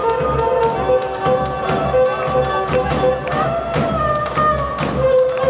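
Live Pontic Greek dance music from a folk band: a held melody line over a steady beat on a large double-headed drum (davul). The melody bends in pitch about three seconds in.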